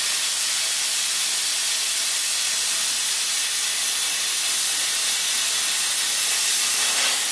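Plasma cutter cutting through steel plate: a steady hiss from the arc and its air stream.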